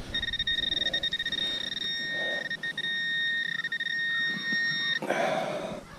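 Handheld metal-detecting pinpointer giving a continuous high beep tone while held on a target, cutting off abruptly about five seconds in. A short burst of rustling in grass and soil follows.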